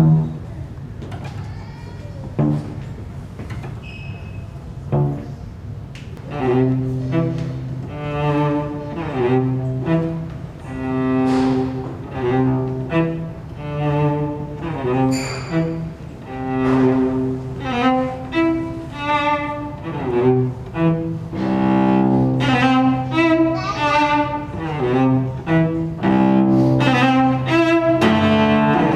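Improvised solo instrumental music: a low-pitched string instrument plays short phrases of held notes. It is sparse and quieter at first, becomes steady about six seconds in, and grows busier near the end.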